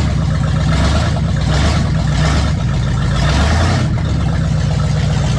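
Chevrolet K1500 pickup's engine running, with several quick swells in speed, as from blips of the throttle.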